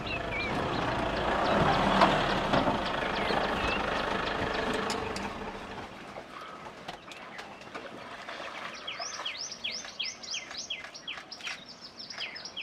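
A vehicle engine runs low under a broad rush of noise that peaks about two seconds in, then fades out by about five seconds. From about nine seconds a bird calls in a quick run of short, falling chirps, about three a second.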